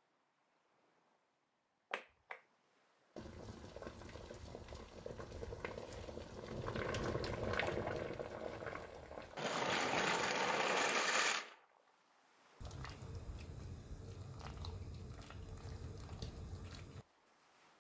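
Two short knocks about two seconds in, then a pot of water at a rolling boil, with a louder rush for about two seconds partway through. After a short break the boiling goes on with penne cooking in the water.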